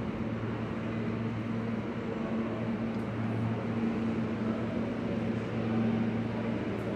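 Subway station platform ambience: a steady low hum over a wash of background noise, with no train passing.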